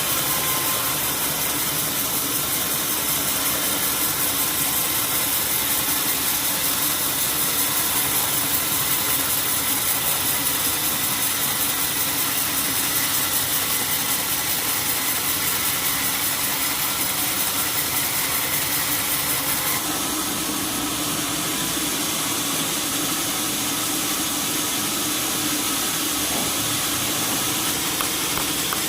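Sawmill machinery running steadily: a constant loud mechanical drone with a hiss, whose high end changes slightly about twenty seconds in.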